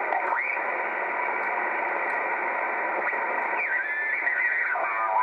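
Static hiss from an R-390A valve communications receiver, its audio held to a narrow voice band, with faint garbled single-sideband voices breaking through the noise.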